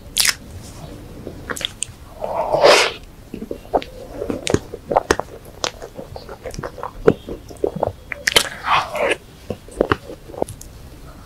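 Close-miked eating of soft, chocolate-coated cream puffs: wet chewing, lip smacks and many small sticky mouth clicks. Two louder, longer airy rushes come about two and a half and eight and a half seconds in.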